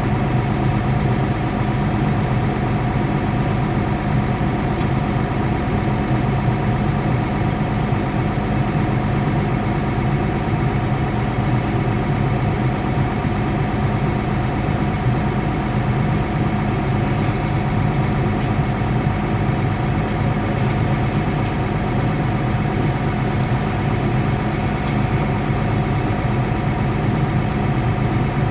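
Caterpillar D6 bulldozer's diesel engine idling steadily, a constant drone heard from inside its cab.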